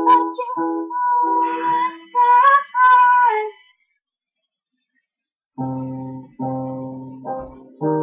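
Singing voices hold and slide through a few notes, stopping short a little over three and a half seconds in; after about two seconds of silence an acoustic guitar strums chords, each left to ring.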